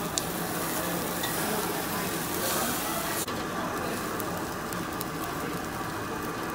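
Chicken sizzling on a wire-mesh grill over charcoal: a steady, even crackle, with a sharp click about a quarter second in.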